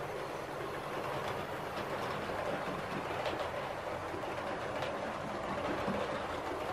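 OO gauge model locomotive and coaches running along the track: a steady whirr of motor and wheels on the rails, with a few faint clicks.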